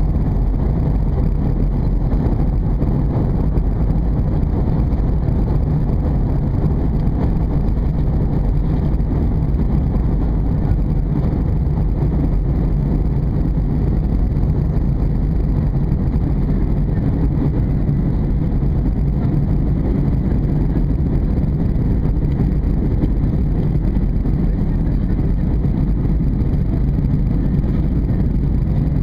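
Steady low rumble of engine and airflow noise inside an Airbus A320's passenger cabin during descent, unchanging throughout.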